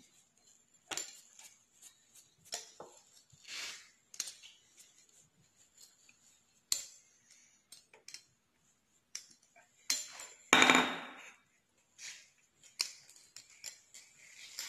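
Wheel pizza cutter rolling through thin dough against a countertop, giving scattered light clicks, knocks and clinks. There is one louder clatter about ten seconds in.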